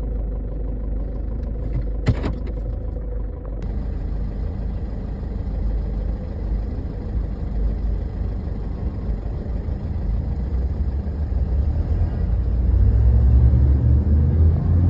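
Chevrolet HHR engine running rough, a steady low rumble with a single click about two seconds in. It grows louder and deeper over the last few seconds. The rough running comes with a P0011 code: intake camshaft timing over-advanced.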